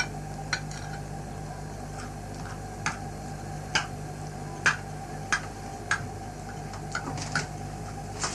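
Light clicks and taps of small hard objects handled on a tabletop, about ten of them at irregular spacing, over a steady low hum.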